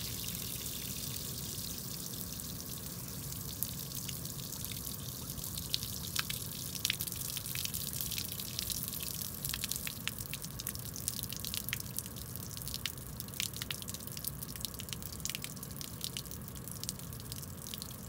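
Water draining from a boat hull's drain hole in a thin stream and splashing onto wet pavement. The steady trickle breaks up into more separate drips and splats a few seconds in. It is water trapped inside the hull, which the owner calls not normal.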